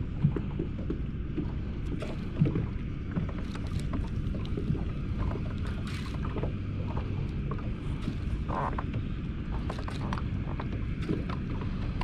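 Steady low rumble of a small fishing boat sitting on the water, with a few light knocks, one just after the start and one about two and a half seconds in.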